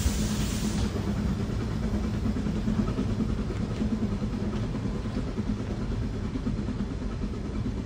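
Brienz Rothorn Railway rack steam locomotive No. 6 working slowly, with a steady low rumble and hum. A hiss of steam escaping low at the front of the locomotive cuts off about a second in.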